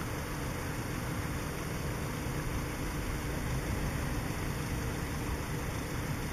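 Steady low rumble of idling road-vehicle engines with a constant hiss, no distinct events.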